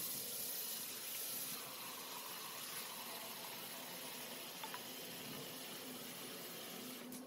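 Water running steadily from a kitchen tap into a vessel, turned off near the end.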